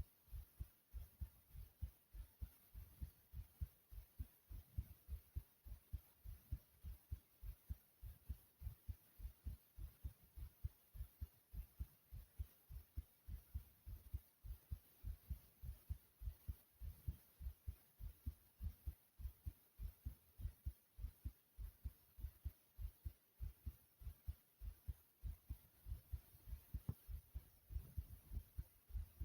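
A person's heartbeat: quiet, low beats repeating in a steady, even rhythm.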